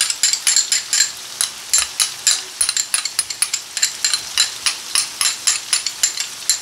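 Minced meat frying in ghee on a hot steel tawa, hissing steadily with rapid, irregular crackles and pops as yogurt is poured onto it.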